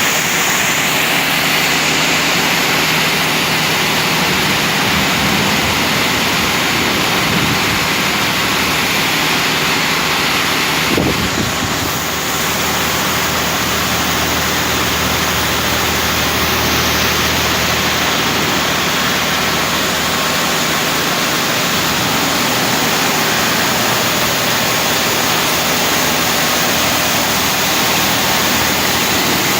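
Automatic heavy-vehicle wash machine running: a steady, loud rush of spray and machinery over a low motor hum, with a brief change about eleven seconds in.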